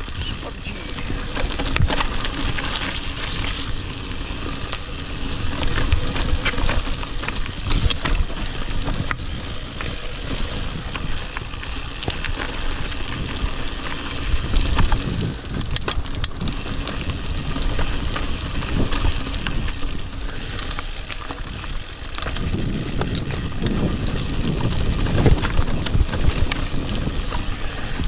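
Mountain bike riding down a dirt forest trail: tyres rolling over packed dirt and loose stones with a steady rumble, scattered knocks and rattles from the bike over bumps, and wind on the microphone. The rumble gets louder about two thirds of the way in.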